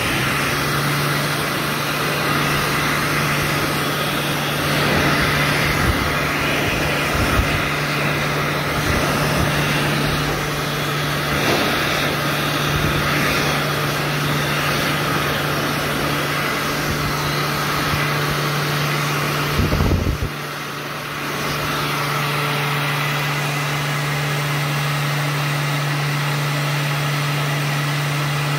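Cast-iron World Dryer RA5-Q push-button hand dryer running: a steady motor hum under the rush of hot air from the nozzle. For about the first twenty seconds, hands rubbing in the air stream add an uneven rumble. After that the sound settles to an even, steady blow.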